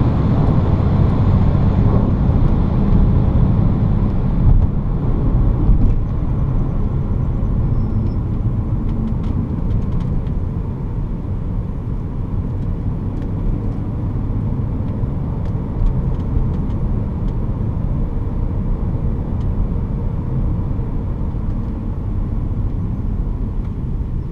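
Cabin noise of a BMW E46 330Ci on the move: a steady low rumble of tyres, road and wind with the engine under it. It grows a little quieter about a third of the way in as the car slows, then holds steady.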